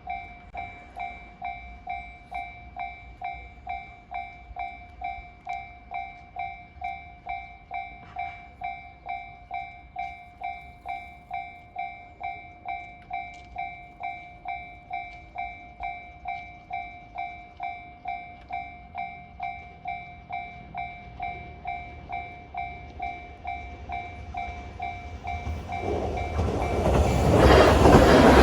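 Japanese railway level-crossing alarm ringing its repeated kan-kan, just under two strikes a second. A train's approach grows louder from about 22 seconds in, and the train rushes past near the end, drowning out the alarm.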